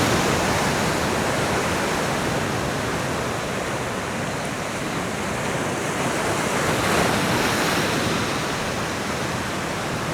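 Sea surf washing against rocks: a steady rushing wash of swell that builds a little about seven seconds in.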